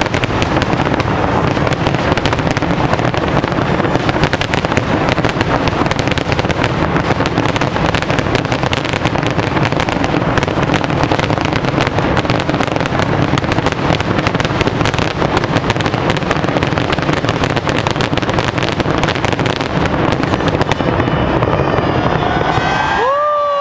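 Rooftop fireworks barrage: a continuous, dense roll of rapid crackling and bangs that cuts off near the end.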